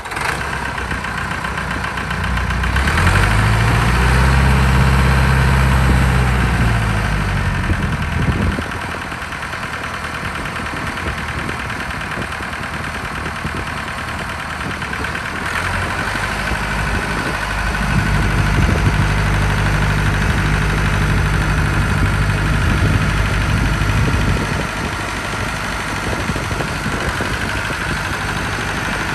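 Massey Ferguson 275 tractor's four-cylinder diesel engine running as the tractor is driven slowly. It is revved up and back down about three seconds in, then held at a higher speed again from about eighteen to twenty-four seconds.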